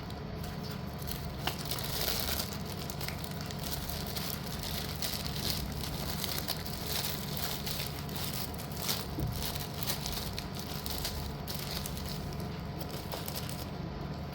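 Continuous crinkling and rustling of packaging as slate pieces are handled and unpacked, a dense run of small crackles at an even level.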